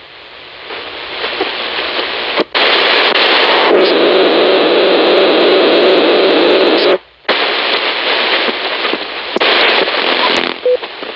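Icom IC-7300 transceiver in AM mode giving loud shortwave hiss and static as it is retuned from frequency to frequency, the audio cutting out briefly twice. From about four to seven seconds a heavier rushing noise sits over the band, of the kind the North Korean jammers lay over South Korean shortwave stations.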